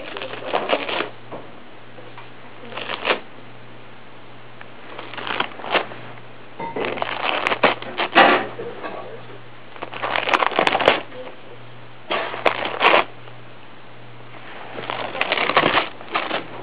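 A cat tearing and chewing paper: about seven short crackly rips, each under a second or so, coming every couple of seconds.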